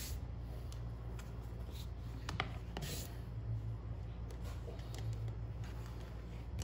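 Soft handling sounds of hands smoothing and lifting a thin sheet of fondant on a plastic board: faint rubs and a few light taps.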